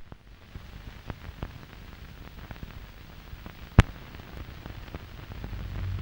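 Crackle and scattered pops of an old film soundtrack over countdown leader, with one sharp pop about four seconds in and a low hum coming up near the end.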